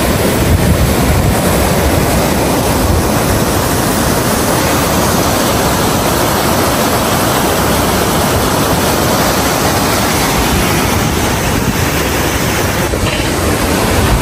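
Rushing water of rapids and a waterfall, a loud, steady roar.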